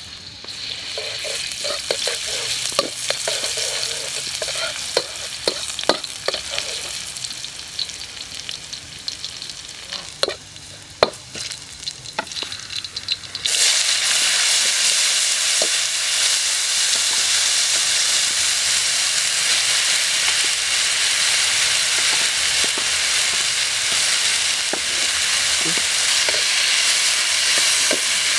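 Minced garlic sizzling in oil in a carbon-steel wok, with a metal ladle scraping and tapping the pan. About halfway through, chopped vegetables go in and the sizzle suddenly becomes much louder and steady as they are stir-fried.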